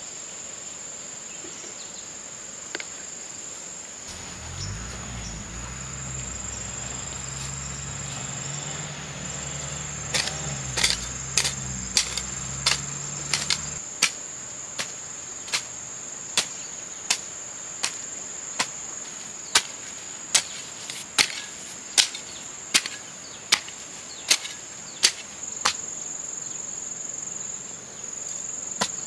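A hoe blade chopping into soil in a steady rhythm, about one stroke every three-quarters of a second, starting about a third of the way in. Under it, insects shrill steadily at a high pitch, and a low hum is heard in the first half.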